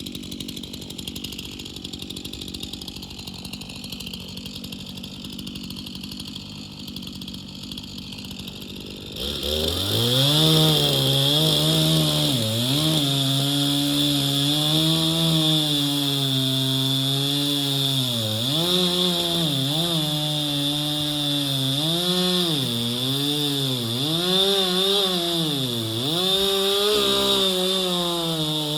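Two-stroke chainsaw idling, then about nine seconds in opening up to full throttle and cutting into a large hickory trunk for the felling cut, its engine pitch dipping and recovering again and again as the chain bogs under load.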